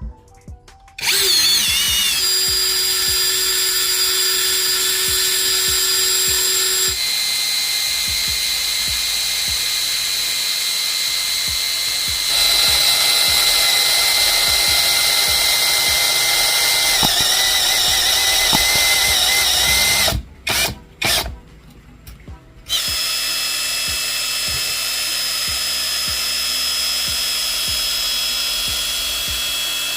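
Electric drill running at a steady speed with a whining motor tone. It stops about two-thirds of the way through, gives three short bursts, then runs steadily again.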